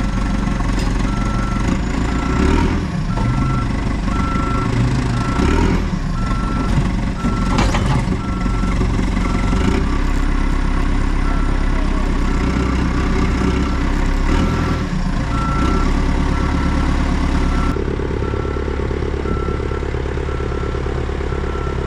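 Caterpillar backhoe's diesel engine running while its reversing alarm beeps steadily, about once a second, as the machine backs up. A few knocks sound in the first third.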